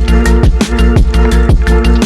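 Background music: an electronic track with a fast, steady drum beat, deep falling bass kicks and sustained synth chords.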